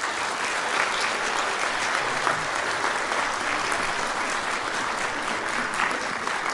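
Audience applauding steadily, a dense patter of many hands clapping that starts to fade just after the end.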